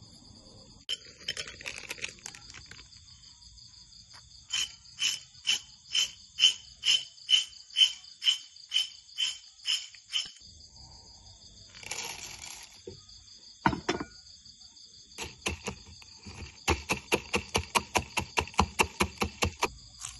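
Pestle pounding peanuts in a mortar: a run of about a dozen evenly spaced strokes, roughly two a second, then after a pause a faster run of strokes near the end. Crickets trill steadily in the background.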